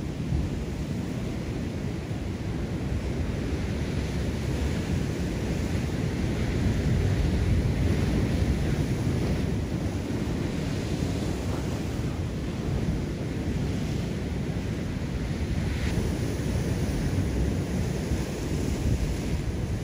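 Sea surf washing and breaking against a rocky shore, with wind rumbling on the microphone.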